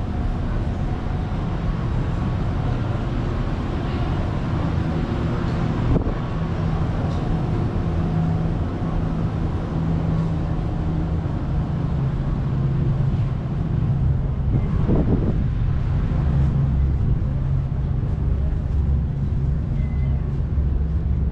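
Steady low engine drone with wind on the microphone, and a single knock about six seconds in.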